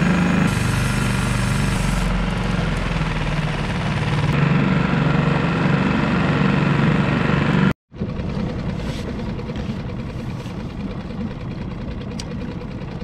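Small outboard motor on a Solo Skiff running under way, with water rushing along the hull. The sound cuts out for an instant about eight seconds in, then the motor runs on more quietly at trolling speed.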